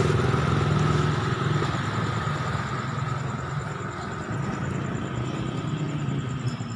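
A motorcycle engine running steadily, fading after the first couple of seconds, over constant street noise.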